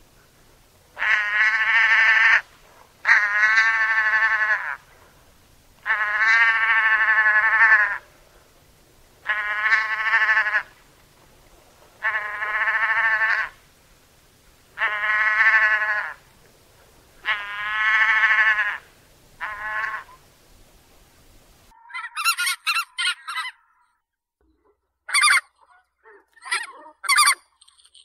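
Emperor goose calling: eight long, drawn-out honks of one to two seconds each, a couple of seconds apart. About 22 seconds in there is a cut to a different recording of short, quick, higher-pitched calls in a few small clusters.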